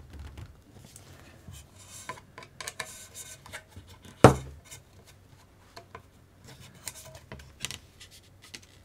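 Small RC car chassis parts being handled and fitted by hand: scattered light clicks and rubbing, with one sharp knock about four seconds in.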